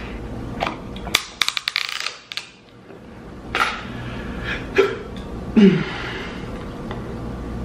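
Quick light clicks and taps of a plastic deli container and its lid being handled and set down, then a few single clicks as chopsticks go into it, with a brief low hum of a voice about two-thirds through.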